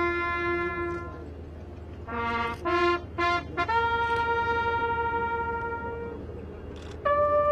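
Naval bugles sounding a ceremonial call in unison. A held note ends about a second in, three short notes follow after a pause, then a long held note, and a new note begins near the end.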